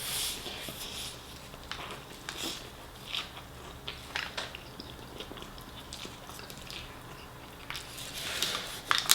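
Close-up mouth sounds of a person chewing a chicken shawarma wrap, with wet smacks and small clicks at irregular intervals.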